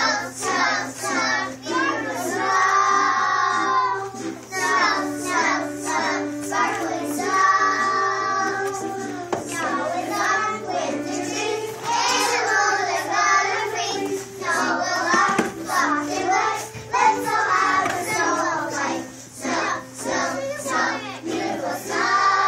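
A kindergarten children's choir singing a song together, with an instrumental accompaniment holding steady notes beneath the voices.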